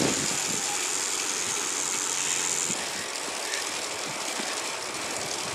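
Steady wind and rolling noise of a bicycle riding along a paved path, picked up by a handlebar-mounted camera, with a faint high steady tone during the first half.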